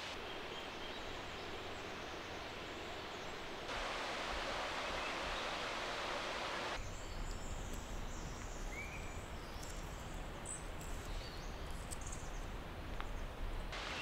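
Forest ambience cut together from three takes: a steady rushing hiss that grows louder about four seconds in, then after a cut about seven seconds in a quieter backdrop with a low rumble, faint rustling and clicks, and one short bird chirp.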